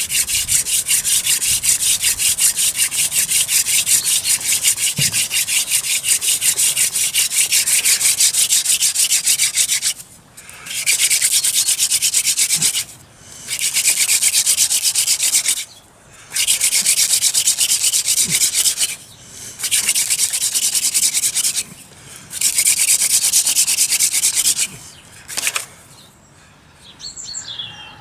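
Hand-drill fire by friction: a wooden spindle spun rapidly back and forth between the palms, grinding into a wooden hearth board with a fast, dry rubbing. It runs unbroken for about ten seconds, then comes in spells of two to three seconds with short breaks between them, and stops shortly before the end, when a few bird chirps are heard.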